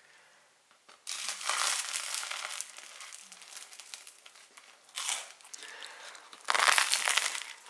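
Crisp crust of a homemade loaf crackling and crunching close to the microphone as it is handled and bitten into, in a few bursts, the loudest near the end.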